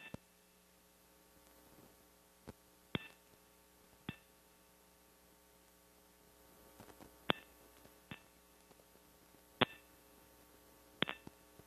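Faint steady electrical hum on the audio line, broken by about eight sharp clicks at irregular intervals, some with a brief high beep-like ring. No rocket engine noise is heard.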